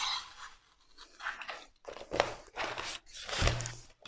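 A snap-off knife finishing its scraping cut through self-adhesive vinyl film along a metal ruler, then the crinkle and rustle of the cut film being lifted and rolled up, with a low thump a little over three seconds in.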